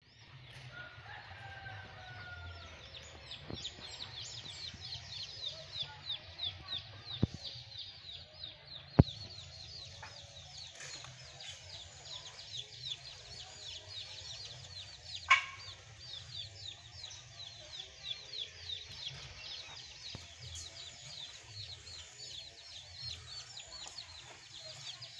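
Village outdoor ambience: chickens clucking over a fast, steady run of high chirps, with two sharp knocks about a third of the way in and one short loud call just past halfway.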